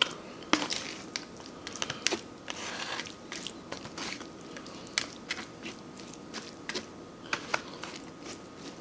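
Close-miked chewing of stir-fried flat rice noodles: wet mouth smacks and sharp clicks at irregular intervals, with no talking.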